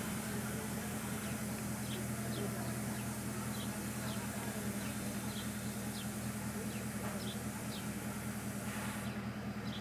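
Steady low hum under a hiss of background noise, with faint short chirps, about one a second, from birds. The high part of the hiss thins out near the end.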